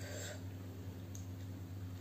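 Faint rustle of a cabbage-leaf wrap of fried noodles being handled, with a small click about a second in, over a steady low hum.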